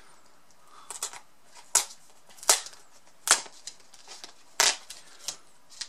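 Wrapping being peeled and torn off a cardboard smartphone box, about six sharp crackling snaps spaced roughly a second apart.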